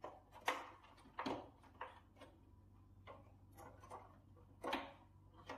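Scattered sharp plastic clicks and knocks, a few in a few seconds, as the snap clips on an air conditioner indoor unit's plastic casing are pushed and pried loose.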